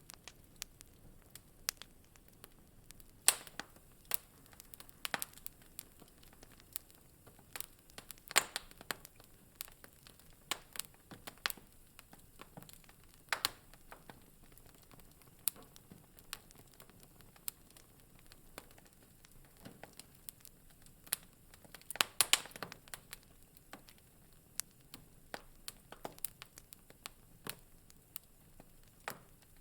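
Wood fire crackling in a fireplace: irregular sharp pops and snaps over a faint hiss, with a few louder pops standing out, including a quick cluster a little past the middle.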